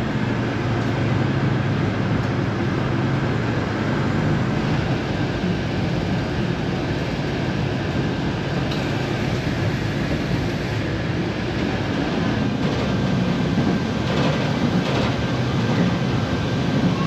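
Steady running noise of a narrow-gauge passenger train in motion, heard from inside the carriage.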